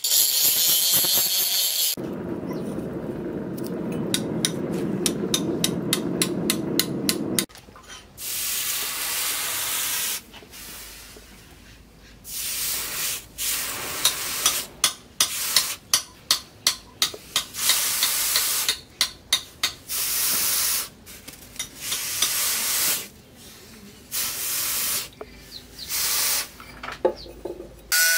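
An angle grinder grinding the steel head of a double-bit axe, then about five seconds of a steadier, lower machine sound. From about eight seconds in come repeated short bursts of sizzling hiss, the hot axe head being dipped again and again in a water trough to quench it.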